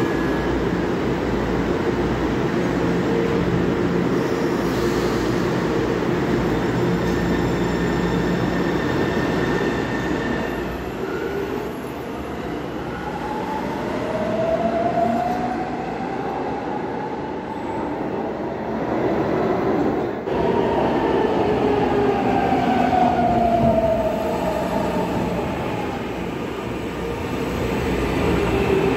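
São Paulo Metro Frota G subway train standing with a steady rumble, then pulling out. As it accelerates, a motor whine rises and falls in pitch, and the cars rumble past close by.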